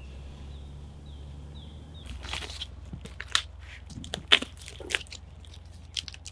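Irregular crunches and cracks beginning about two seconds in, like dry leaves and twigs being stepped on or broken. Before them, a faint high chirp repeats several times over a low hum.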